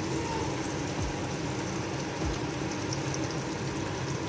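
Tomatoes and onion paste frying in hot oil in a pan: a steady sizzle with small crackles.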